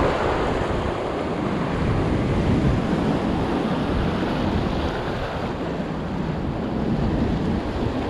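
Rough sea surging and breaking against the rocks and concrete tetrapods of a breakwater, a steady wash of surf, with strong wind rumbling on the microphone.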